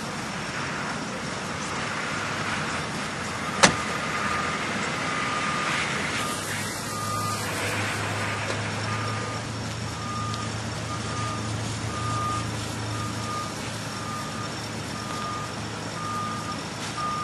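A vehicle's reversing beeper sounding about once a second as it backs up, over steady outdoor background noise, with one sharp click a few seconds in.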